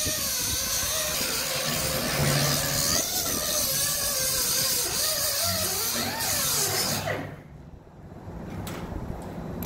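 Handheld angle grinder grinding the steel of an excavator bucket, cleaning up the gouged weld prep. The motor's pitch wavers under load, then winds down about seven seconds in and the noise drops away.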